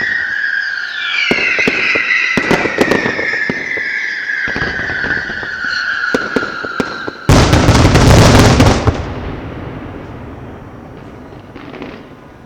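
Fireworks: a high whistle slowly falling in pitch among sharp crackling pops, then a loud burst of bangs about seven seconds in that dies away in a fading rumble.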